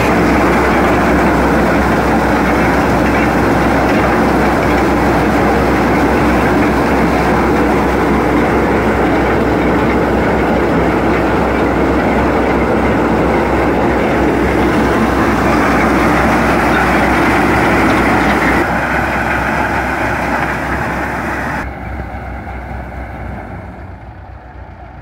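Belarus MTZ-50 tractor's diesel engine running a corn-shelling machine off its power take-off: a loud, steady mechanical din with the rush of grain through the machine. It drops away in steps after about eighteen seconds and is much quieter near the end.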